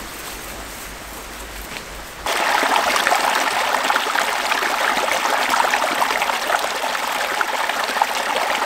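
Small mountain creek trickling and splashing over rocks, a loud steady rush that comes in suddenly about two seconds in, after quieter outdoor background.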